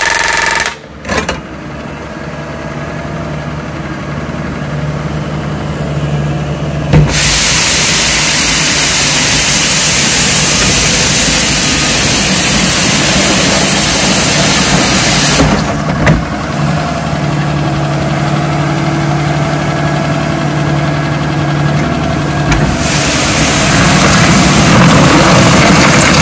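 JCB Pothole Pro's diesel engine running steadily. A loud, even hiss cuts in about seven seconds in, stops a little past halfway, and comes back near the end, with the overall sound changing abruptly at each of these points.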